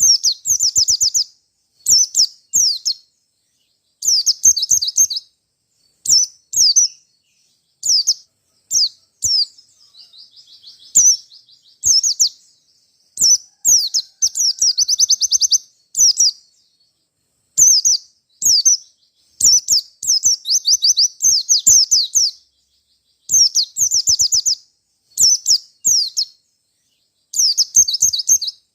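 White-eye (pleci) singing: short bursts of rapid, high-pitched chirping notes, roughly one burst a second with silent gaps between, and a longer fast trill about fourteen seconds in.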